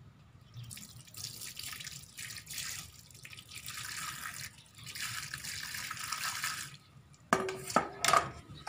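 Water poured from a metal pot over a child's hands as she washes them, splashing down in a few long pours. A few sharp knocks follow near the end.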